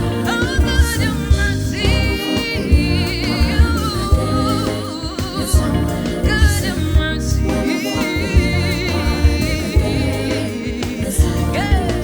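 Gospel music: a singer holding notes with a wavering vibrato over a full band accompaniment with a steady beat.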